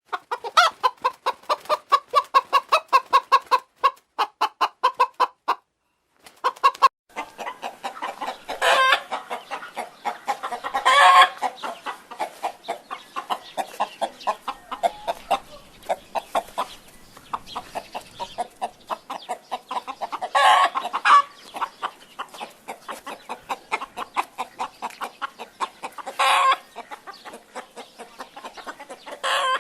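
A hen clucking: a fast, steady run of short clucks, broken about six seconds in, with louder drawn-out cackle notes breaking through every few seconds.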